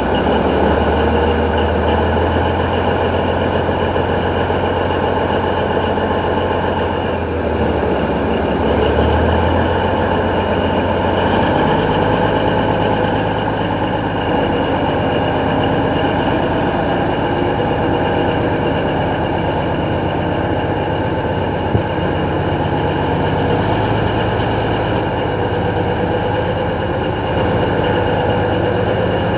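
Heavy diesel engine running steadily, its low note shifting upward about eight to twelve seconds in.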